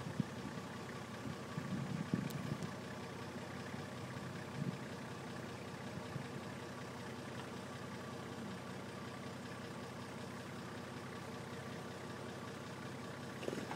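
Toyota 4x4's engine running slowly and steadily as the truck crawls down a rocky slope, with a few dull low bumps in the first few seconds.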